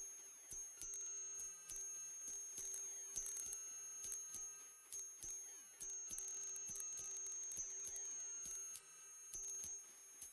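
A steady, ultra-high-pitched electronic tone of the kind used for tinnitus masking, with a fainter lower tone beneath it. Its loudness dips briefly and recovers several times, with faint clicks at the dips.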